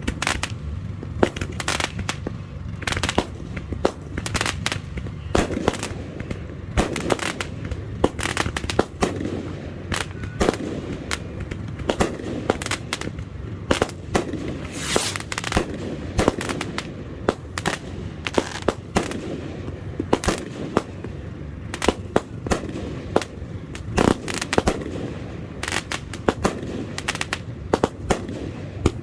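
Fireworks going off in quick, irregular succession: a steady stream of sharp bangs and pops over a low rumble.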